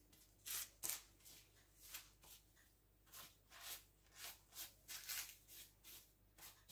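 Faint, soft brushing and rustling of hands gathering and sweeping away leftover cake crumbs, a string of short irregular swishes about two a second.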